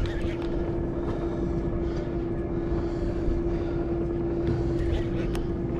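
The sportfishing boat's onboard machinery running, a steady drone with a constant hum, over a low rumble.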